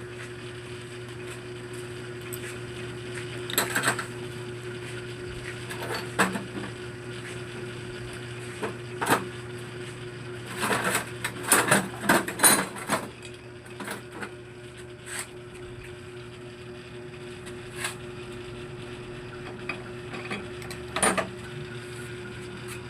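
Metal engine parts from a dismantled scooter top end clinking and clattering as they are handled, in scattered knocks with a busy run of them near the middle, over a steady low hum.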